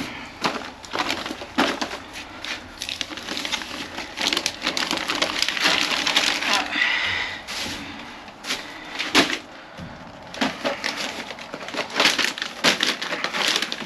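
Plastic trash bags and snack packages rustling and crinkling as they are pulled about, with cardboard cracker boxes knocking and being set down, in an irregular run of crackles and clatters.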